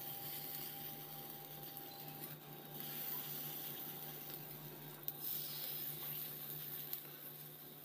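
Batter sizzling in mustard oil on a hot iron tawa as more dollops are set down, a steady hiss with a couple of light clicks.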